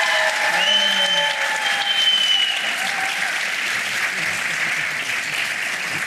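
Studio audience applauding steadily, with some cheering voices over it in the first half.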